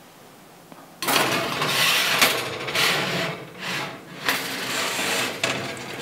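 Hot stoneware baking stone scraping and rasping across the oven's wire rack in several strokes, starting about a second in, as it is pulled out of the hot oven.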